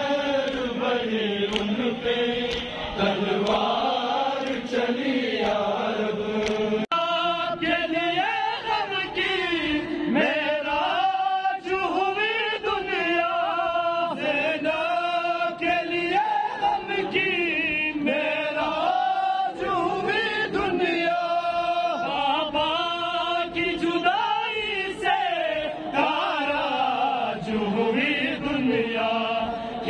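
A crowd of men chanting a Shia mourning lament (nauha) in unison, following a lead reciter on a microphone. Hands strike chests in a steady beat under the singing (matam).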